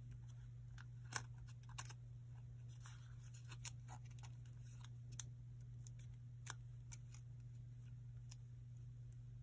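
Small sheet of origami paper being folded and creased by hand: scattered sharp paper clicks and a brief crinkle about three seconds in, as the fingers press the creases, over a steady low hum.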